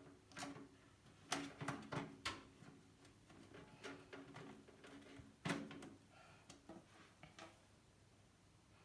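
Irregular knocks and clicks of computer parts being handled against a computer case, some with a short ringing. The loudest come about a second and a half in and again about five and a half seconds in.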